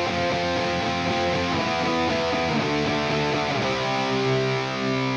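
Electric guitar played through the ML Sound Lab ML800 amp-sim plugin, a Marshall JCM800-style high-gain tone with the gain at 10 on the modern rock preset. Distorted chords change about a second and a half in and again past three and a half seconds, then one chord is left ringing.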